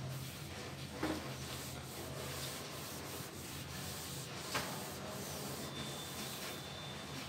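Whiteboard eraser wiping across a whiteboard, a steady rubbing sound, with a light knock about a second in and another just past the middle.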